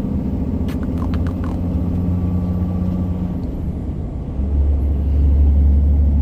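DAF XG truck's diesel engine running, heard from inside the cab, with a few light clicks in the first second and a half. About four seconds in, the engine note drops lower and gets louder, as the heavily loaded truck pulls onto the highway.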